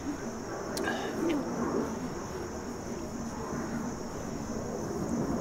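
Outdoor garden ambience: a steady, high-pitched insect drone over a low background rumble, with a short click and a brief chirp about a second in.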